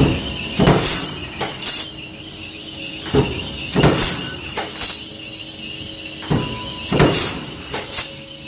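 A machine clanking in a repeating cycle: groups of about three sharp, ringing metal impacts roughly every three seconds, over a steady high hum.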